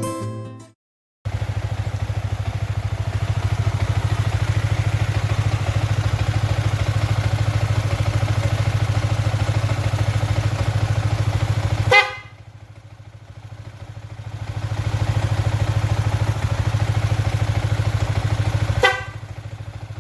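Yamaha Vixion R 155's single-cylinder engine idling steadily. A brief, sharp horn toot comes about twelve seconds in and again near the end, and the engine sound dips for a few seconds after each.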